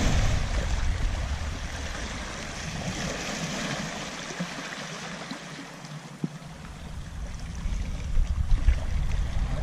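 Small waves washing and splashing over shoreline rocks, with a low rumble of wind on the microphone that drops away for a couple of seconds in the middle.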